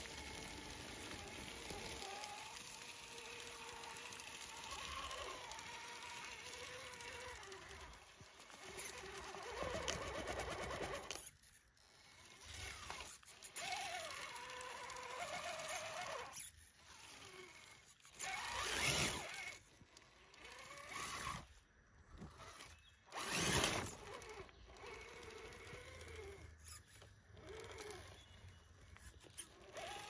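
Electric RC scale crawler's motor and gears whining as it crawls over dry leaves and climbs a dirt mound, the whine rising and falling with the throttle. A few louder rushes of noise come in the second half.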